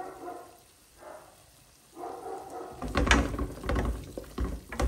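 Wooden spoon stirring and scraping a thick fried onion and spice masala in a stainless steel pot, with sharp knocks against the pot. It starts about three seconds in, after a quiet stretch.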